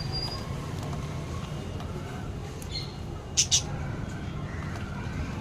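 Budgies calling: faint chirps, then two short, sharp, loud calls in quick succession about three and a half seconds in, over a steady low hum.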